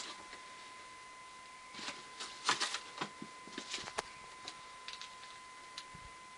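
Packaging being handled: a run of crinkly rustles and light clicks about two seconds in, tapering to a few scattered clicks, over a faint steady high-pitched hum.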